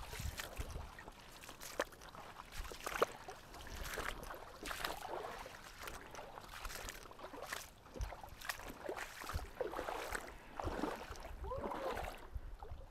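Footsteps wading through a shallow, rocky creek, with irregular splashes and the knock of feet and gear on stones.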